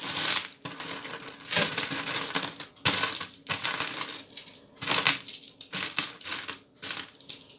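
Copper-coloured euro cent coins clinking and scraping in a plastic bowl as hands rummage through the pile and pick coins out, a quick, irregular clatter of small metal clicks.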